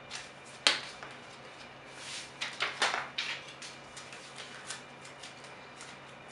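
Vinyl decal and its paper backing crackling and rustling in the hands as the backing is peeled off, with a sharp snap near the start and a burst of crackles a couple of seconds in.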